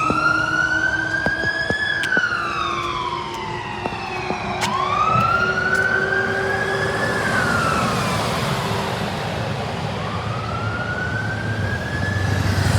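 Fire truck's electronic siren on the wail setting, its pitch sweeping slowly up and down about three times.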